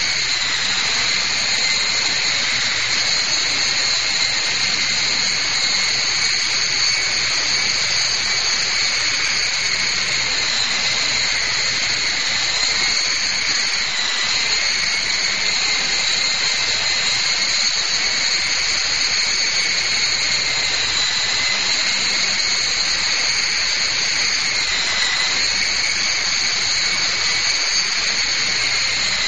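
Nano R/C helicopter's electric motors and rotors in flight: a steady high-pitched whine over airy hiss, its pitch wavering slightly now and then.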